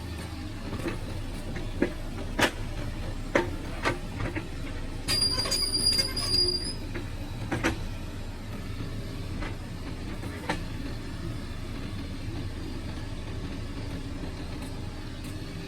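Excavator running steadily while it moves rocks, with scattered sharp knocks and clanks of stone and steel. About five seconds in, a high metallic squeal lasts under two seconds.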